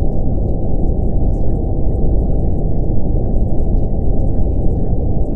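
Steady brown noise: a deep, even rush with no high hiss, unchanging throughout.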